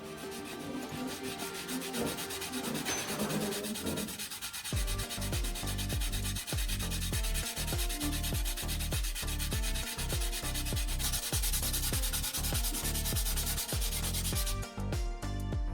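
Abrasive sanding or grinding, a steady rasping hiss that stops near the end, over background music with a steady bass beat.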